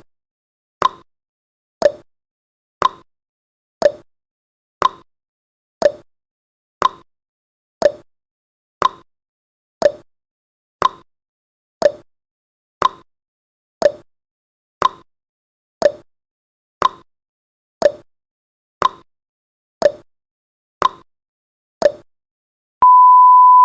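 Countdown timer's clock-tick sound effect, one short tick every second. Near the end the ticking stops and a steady, high beep tone starts, marking the countdown reaching zero.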